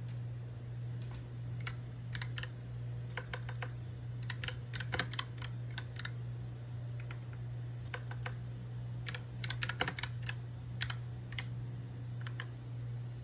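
Keys of a computer keyboard clicking in irregular clusters of quick presses, over a steady low hum.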